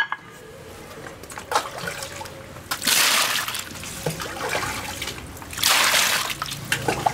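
Water pouring into a stainless steel basin of red peppers and splashing over them, in two loud spells about three seconds in and again near six seconds, with quieter trickling between and a few small knocks before.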